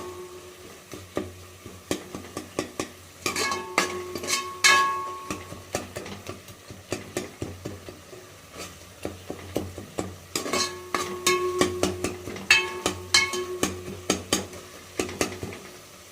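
A metal utensil stirring food in a pan, scraping and knocking against the metal, which rings after the harder knocks. There are two busier spells of knocking, with a light sizzle of frying underneath.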